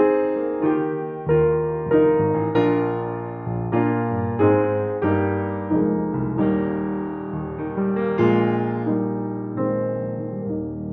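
Gentle solo piano or electric-piano music: notes and chords struck in turn, each fading away before the next.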